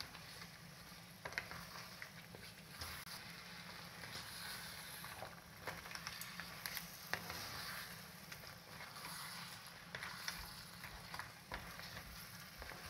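Crab pieces cooking in onion-tomato masala in a pan, sizzling faintly, with scattered scrapes and knocks of a spatula stirring them.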